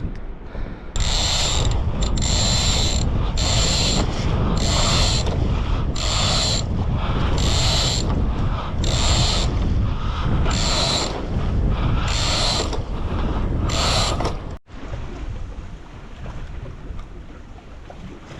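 Sailboat deck hardware worked by hand, a line whirring through it in quick repeated pulls, about one stroke every second. The strokes stop abruptly near the end, leaving wind and water rush.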